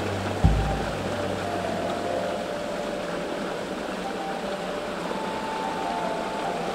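Steady rush of a stream running over rocks, with a single low thump on the microphone about half a second in.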